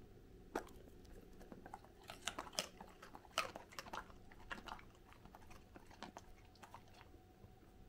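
Goldendoodle chewing a thick piece of carrot: a run of sharp, irregular crunches, thickest about two to five seconds in and tapering off near the end.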